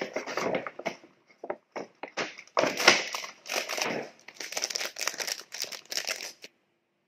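Paper bakery bag and clear plastic bag crinkling and rustling as they are handled, in irregular bursts. The crinkling is loudest about three seconds in and stops abruptly about six and a half seconds in.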